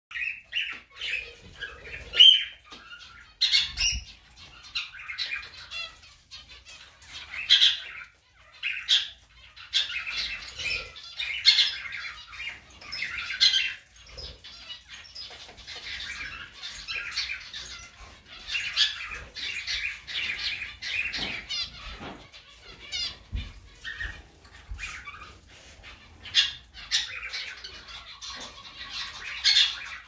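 Zebra finches calling: a near-continuous stream of short, repeated calls and chatter, with a few louder single calls standing out now and then.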